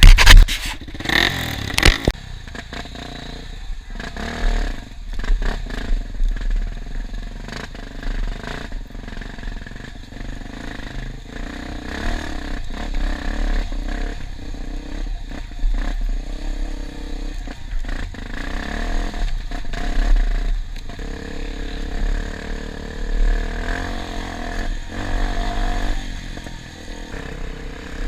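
Enduro dirt bike engine running with its pitch rising and falling as it is ridden over rough ground, with clattering and knocks from the bike; a few loud bangs in the first two seconds.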